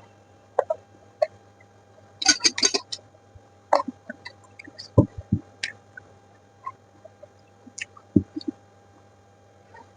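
Close-miked eating sounds: scattered wet mouth clicks and smacks while chewing, with a short run of crisp crunching about two seconds in.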